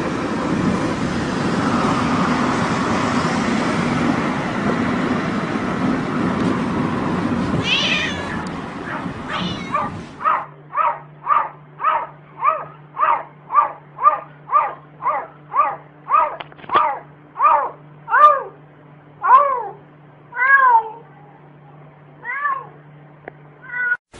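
A cat meowing over and over in a steady rhythm. The short meows come about two a second at first, then grow longer and more drawn-out, rising and falling in pitch, and come further apart near the end. For the first ten seconds, before the meowing starts, a loud steady rushing noise fills the sound.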